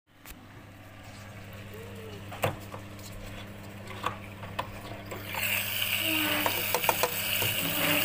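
Sharp plastic clicks and knocks as a front-load washing machine's drain-filter access panel is pried open. From about five seconds in, a steady hiss of water starting to run out of the drain filter housing, over a low steady hum.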